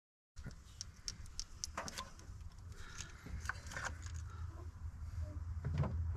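Light clicks and rattles of hands handling parts and tools in a truck's engine bay, starting after a brief silence, over a steady low rumble that grows louder toward the end.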